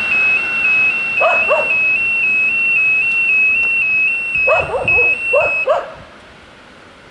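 Level crossing's electronic warning bell sounding a high two-tone warble, alternating about three or four times a second, that cuts off about six seconds in. A dog barks in short bunches of two or three barks during it.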